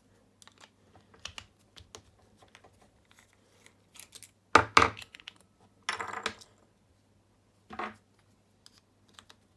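Small plastic and metal clicks and clatter from a mains plug being opened and its cartridge fuse handled, with a few sharper clicks about halfway through.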